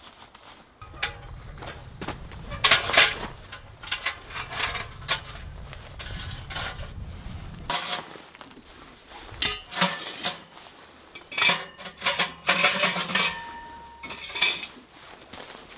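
Metal clinking and clanking as nested chimney pipe sections and a mesh spark arrestor are pulled out of the firebox of a compact camping wood stove, with a brief metallic ring about thirteen seconds in.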